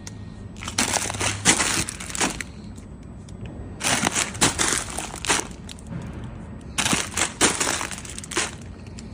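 Automatic weighing and vertical three-side-seal packaging machine cycling. Three bursts of crinkling and rattling come about every three seconds as each weighed dose of plastic raw material drops into the film bag. A steady low hum stops about a second and a half in.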